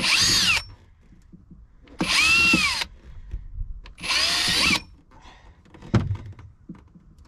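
Power drill with a 3 mm bit drilling a series of small holes to make a makeshift strum box, the strainer for the bilge pump's intake. There are three short bursts, each whine rising as the drill speeds up and falling as it runs down, and a sharp click near the end.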